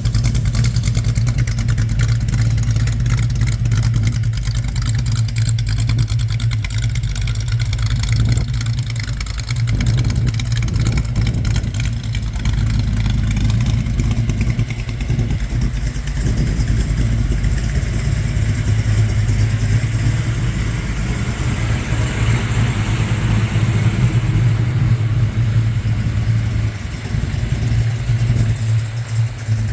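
A 350 V8 engine in a 1973 Holden HQ Monaro GTS running steadily with an even, continuous note.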